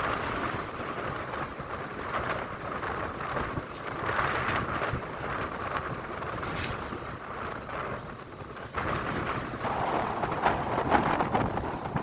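Ocean waves washing ashore, the surf swelling and fading every couple of seconds, with wind rumbling on the microphone.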